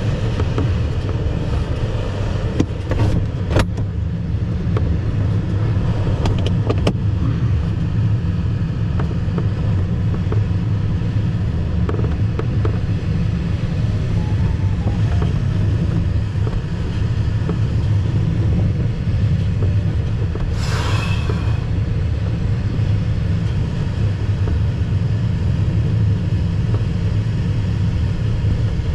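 Airflow noise inside an ASW 15 glider's cockpit: a steady low rumble of air rushing over the canopy and fuselage in flight, with a few sharp clicks about three and seven seconds in and a short hiss about twenty seconds in.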